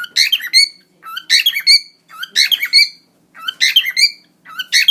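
Cockatiel singing: it repeats the same short phrase of whistled chirps over and over, about once every second and a bit, with brief gaps between phrases.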